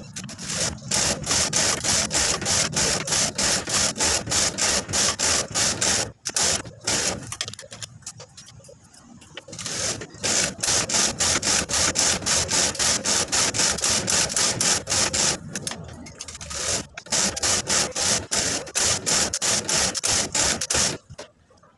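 Hand-operated flatbed knitting machine being worked: the carriage is pushed back and forth across the metal needle bed in a rapid, rhythmic clattering rasp. It quietens briefly twice along the way and stops about a second before the end.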